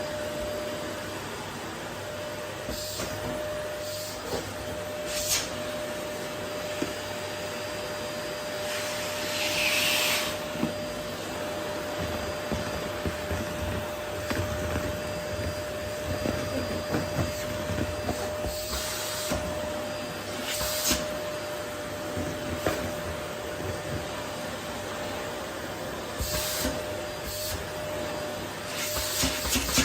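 Vacuum cleaner running steadily, a constant rushing noise with a steady motor whine. Several short, louder hissing swishes come through as the suction changes.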